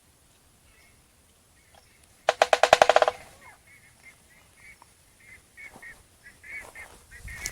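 A bird gives one loud burst of fast repeated notes, about fifteen a second, lasting under a second, a little over two seconds in. Then a small bird chirps over and over in short high notes.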